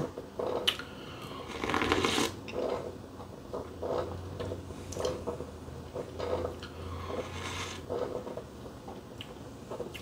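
A person sipping latte from a ceramic cup, with a longer slurping sip about two seconds in and another near eight seconds. Light knocks of ceramic cups being set down and picked up on the counter come between them.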